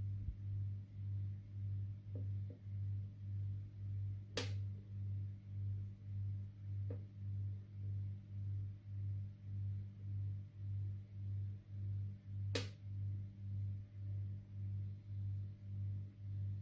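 A low, steady hum that swells and fades about twice a second, with two sharp clicks, one about four seconds in and one near twelve seconds.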